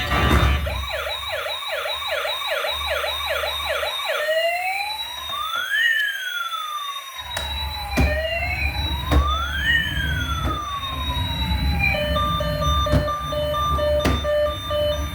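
Electronic toy police siren: a fast yelp of quick rising sweeps, switching about four seconds in to two slow rising-and-falling wails, then to a steady pulsed beeping about twelve seconds in. A few sharp knocks sound over it.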